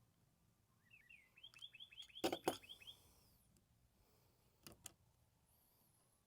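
A bird chirps outdoors in a quick run of short, falling notes. Two sharp clicks land in the middle of it and another close pair comes near the end, as the old piston seal is worked off the hydraulic cylinder's piston by hand.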